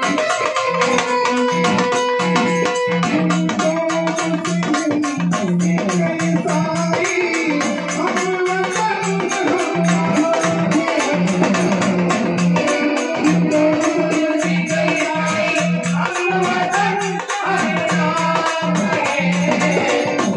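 Marathi folk music with a dimdi frame drum and jingling percussion beating a fast, steady rhythm, and a melody line running over it.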